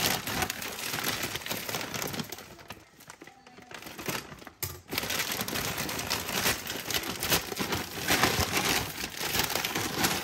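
Plastic poly mailer bag and clear plastic packaging crinkling and rustling as they are handled and an item is pulled out; it goes briefly quieter about three seconds in.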